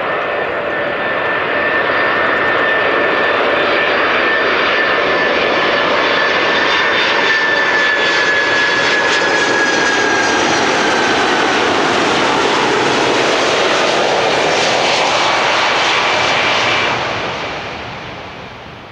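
Boeing 747 jet engines on landing, a loud steady roar with a high whine that slides slightly lower partway through, fading away over the last couple of seconds.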